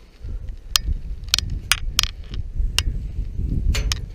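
About ten sharp clicks and knocks at uneven intervals, over a steady low rumble.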